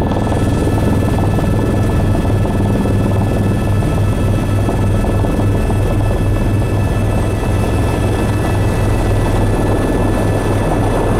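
Helicopter heard from inside the cabin: a steady, loud rotor beat with a thin, high turbine whine running over it.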